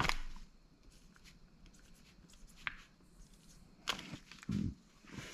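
A few light clicks and knocks as a steel connecting rod is handled and repositioned on a scale, with a duller knock near the end.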